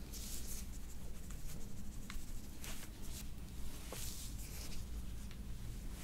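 Hair being pinched, twisted and pulled between gloved fingers near the scalp, as in hair cracking: scratchy rustling in short bursts, with a few faint crackles.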